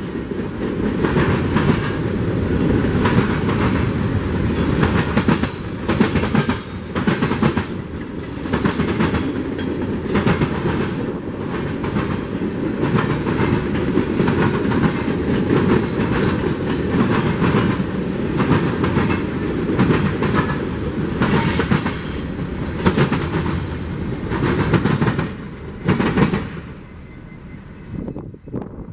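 Union Pacific freight train cars rolling past, the wheels clicking steadily over rail joints under a continuous rumble. The sound drops away abruptly near the end as the train moves off.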